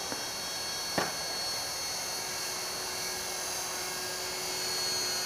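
Electric T-Rex 450 RC helicopter in flight: the steady, high-pitched whine of its brushless motor and rotors, growing a little louder near the end. A short click about a second in.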